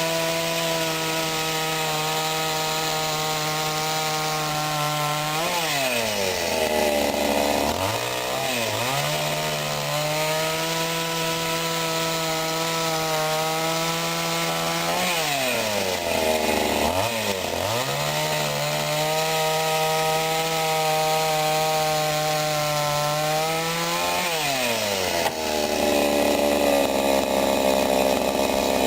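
Two-stroke engine of a Sadko GCS 510E petrol chainsaw cutting firewood at high revs. The throttle is released twice, and each time the engine falls to idle with a couple of quick blips before revving back up. Near the end the revs drop once more.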